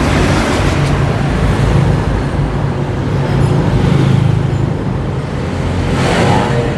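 Road traffic noise: a steady low vehicle rumble that swells around the middle and eases near the end.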